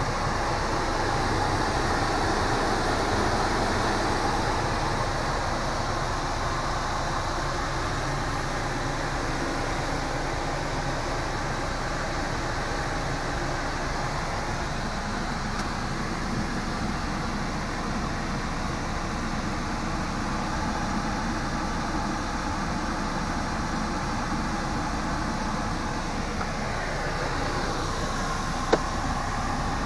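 Steady vehicle-like rumble and hiss, with one sharp click near the end.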